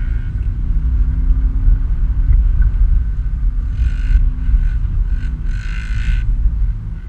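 2013 Subaru Outback driving over sand dunes, heard from inside the cabin: a loud, steady low rumble of engine and tyres, with two brief hisses about four and six seconds in.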